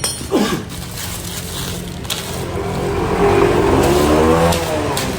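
Motorcycle engine running with a steady low hum. Its pitch climbs from about halfway through and drops again near the end.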